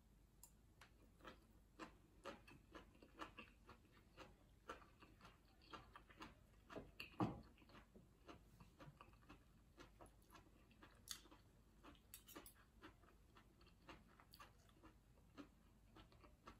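A person chewing a mouthful of sour curry with leafy greens, heard as quiet wet mouth clicks and smacks, about one or two a second, with a somewhat louder click about seven seconds in.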